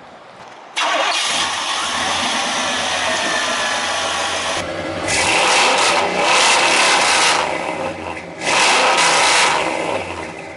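Loud straight-piped exhaust of a GMC Sierra pickup. It comes in suddenly about a second in and runs with a low rumble, then is revved twice, the second rev shorter.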